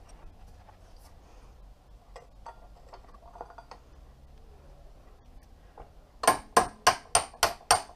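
A hammer taps metal on a motorcycle's rear brake caliper to drive out the two brake-pad retaining pins. After faint clinks of tools being handled, a quick run of about seven sharp, ringing taps begins about six seconds in, at roughly four a second.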